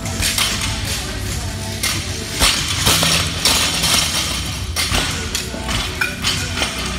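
Metal clanks and clinks of bumper plates and a steel barbell as weight plates are slid onto the bar, several sharp knocks a second or so apart, one near the end ringing briefly. Gym music plays steadily underneath.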